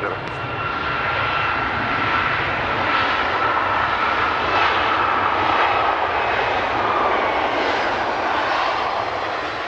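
Jet airliner engines running: a steady rushing noise with a faint whine that slowly drops in pitch, swelling through the middle and easing off near the end.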